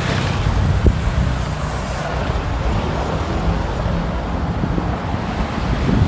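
Street traffic rumbling with wind buffeting the microphone, and a single brief knock about a second in.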